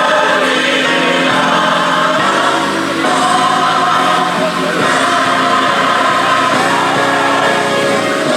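A choir singing gospel music with instrumental accompaniment, loud and steady.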